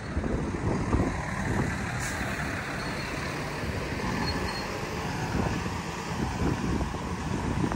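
Road traffic passing on the street beside the sidewalk, including a large truck's engine, with a steady rumble throughout.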